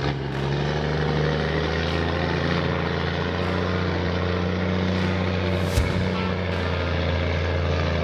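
Heavy vehicle engine running steadily, a deep even drone that holds one pitch throughout.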